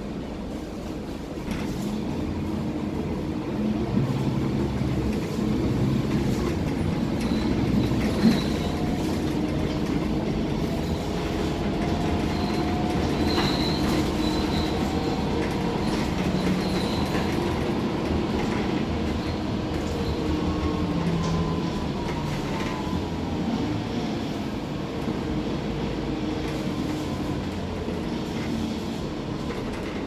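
Mercedes-Benz OC500LE city bus heard from inside the passenger cabin: the diesel engine and drivetrain run with a heavy low rumble that grows louder about a second and a half in as the bus pulls away. A faint whine rises and falls in pitch as it gathers speed, with small rattles from the cabin.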